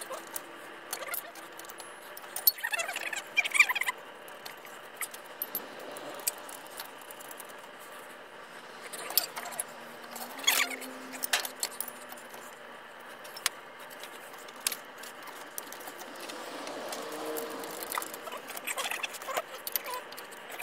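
Steel fixture pieces and tools clinking and rattling as they are handled and fitted on a bottle-jack ball-joint press frame. Irregular clinks, with louder bursts of rattling about three seconds in and again about ten seconds in.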